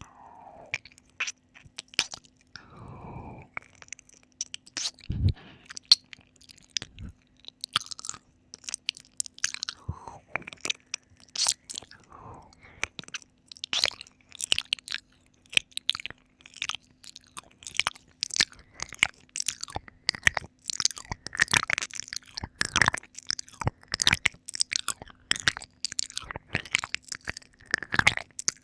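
Close-miked ASMR ear-licking mouth sounds: wet licks, smacks and tongue clicks in a rapid, irregular stream, with a few breathy sounds in the first half.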